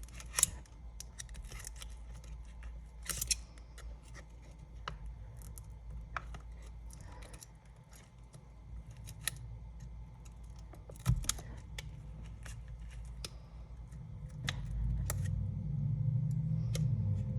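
Scattered small sharp clicks and light scrapes of thin prying tools working around the edge of an iPad's glued glass digitizer. A low hum comes up near the end.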